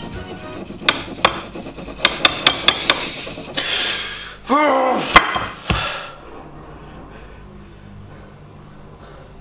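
A knife chopping at fried chicken on a plate: hard knocks of the blade, a quick run of strikes, a scrape, and the loudest single whack about five seconds in, followed by one more hit. After that only a low steady background remains.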